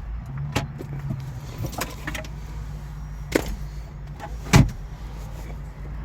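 Clicks and knocks from car parts being handled, the loudest knock about four and a half seconds in, over a steady low hum.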